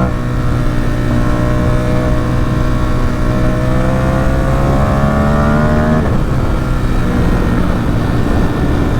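Ducati Supersport 950 S's 937 cc L-twin through a Competition Werkes exhaust, the revs climbing steadily under acceleration for about six seconds, then an upshift and it pulls on in the next gear.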